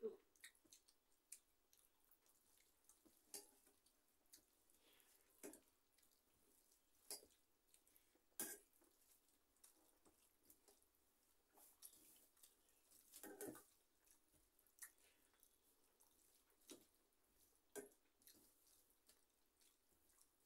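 Near silence broken by faint eating sounds: short, wet clicks and smacks every second or two as rice is eaten by hand from steel plates.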